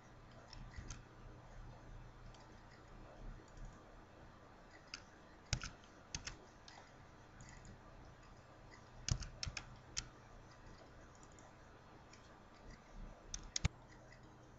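Faint, scattered clicks of a computer keyboard and mouse, a few at a time, with the loudest groups about five and a half, nine and thirteen and a half seconds in, over a low steady hum.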